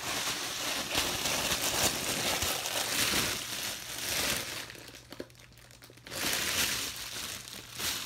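Crinkly fidget-toy packaging rustling and crinkling as it is handled, with a quieter lull a little past the middle.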